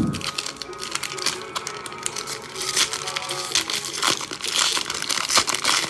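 Crinkling and crackling of trading-card pack wrappers and cards being handled, a rapid run of small crackles, over quiet background music.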